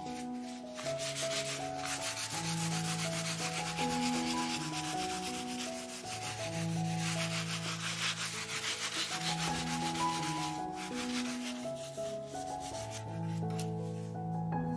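Cloth rag rubbing in rapid strokes over a waxed, chalk-painted wooden tabletop, wiping off the excess dark wax. The rubbing fades out about three quarters of the way in, with background music of slow, held notes underneath throughout.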